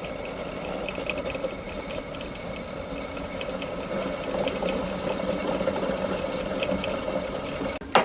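Electric drill running steadily as it bores holes in a metal exhaust plate. It cuts off sharply near the end with a brief clank.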